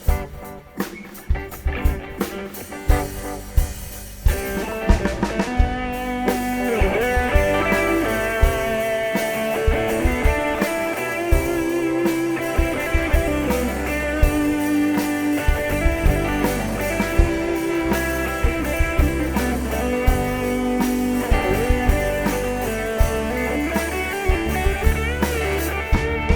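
Live band's instrumental break: drum kit playing on its own for the first few seconds, then a guitar lead with sliding, bending notes over bass and drums from about four seconds in.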